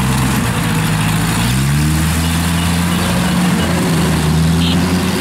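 Engine of a small tracked rice carrier running as it crawls through mud, its pitch rising about one and a half seconds in and then holding steady. Near the end a faint high squeak repeats about every half second.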